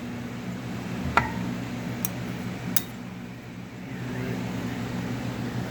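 A few sharp metal clicks and knocks as the electric motor's parts are handled and the rotor is slid out of its housing, over a steady low mechanical hum.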